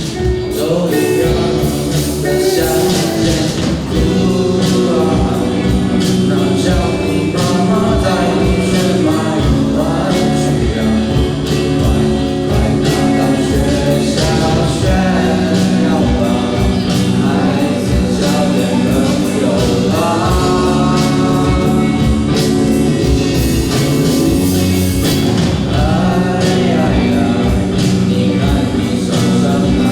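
A student rock band playing live with a singer: sung vocals over a full band with a steady drum beat.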